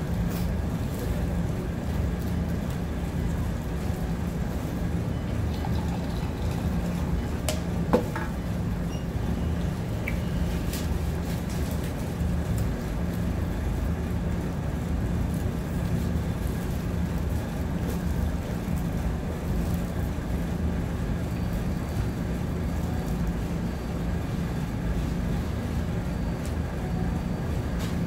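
Steady low background hum and rumble of the room, with one sharp click about eight seconds in.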